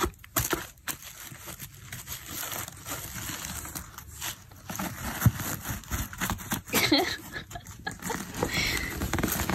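Rustling and crinkling of tissue paper and plastic packaging as a cat rummages through the contents of a cardboard box, with irregular scrapes and soft knocks.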